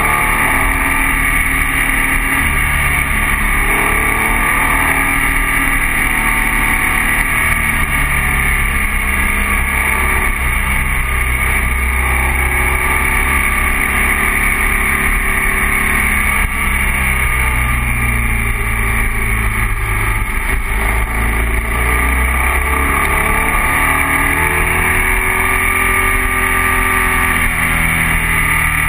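Onboard sound of a BMW R1200 boxer-twin motorcycle on the move: the engine's low note rises and falls as the rider rolls on and off the throttle through the bends, under a constant rush of wind on the microphone.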